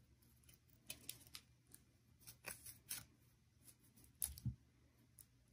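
Scissors snipping through four layers of folded crepe paper, cutting a rounded leaf base: a series of faint, short snips, the loudest a pair about four seconds in.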